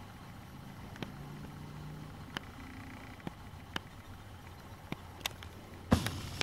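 Handling noise from a handheld camera filmed up close: scattered small clicks over a steady low hum, with one louder knock near the end.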